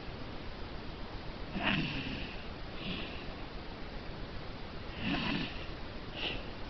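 Domestic cat snoring in its sleep: two slow snoring breaths, each a low rasp with a hissing edge, each followed by a shorter, softer breath.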